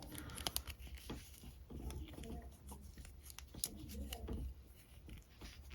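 Nylon zip tie being pulled back out through its head while its locking clip is held open with a small flathead screwdriver: faint scattered clicks and scraping as the tail slides free, with a sharper click near the end. This is the sound of the zip tie unzipping.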